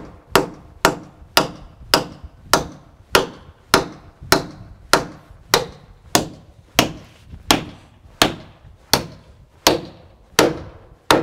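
Hammer driving a 60-penny spike by hand into a wooden column: about eighteen steady blows, a little under two a second, spacing out slightly toward the end.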